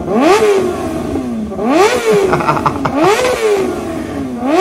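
Kawasaki ZX-4RR's 399 cc inline-four revved in repeated throttle blips, about four in all, roughly every one and a half seconds. Each rev climbs quickly to a high-pitched scream and falls away more slowly.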